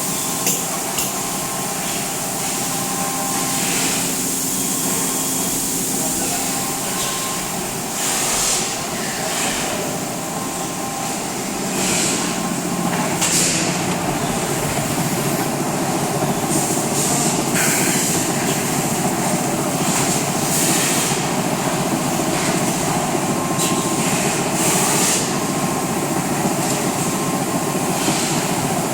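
Extrusion blow-moulding machine for plastic bottles running: a steady machine drone with a few constant tones, broken every few seconds by short hisses.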